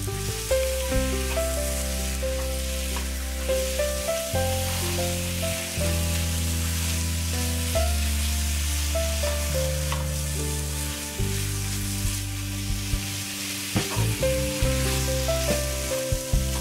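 Chicken pieces and onion slices sizzling in hot oil in a wok while being stirred with a wooden spatula, with a few sharp knocks of the spatula against the pan, mostly near the end. Background music with slow, sustained notes plays throughout.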